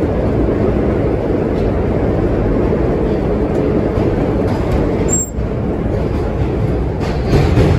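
Vintage R9 subway car running at speed, a steady loud rumble of wheels on rail, with a brief drop in level about five seconds in.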